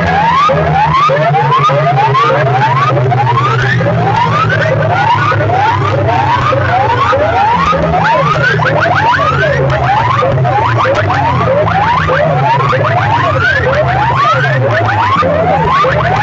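Loud DJ sound-system track of siren-like rising whoops repeating about twice a second over a heavy, steady bass, as blasted by competing loudspeaker rigs in a sound-box competition.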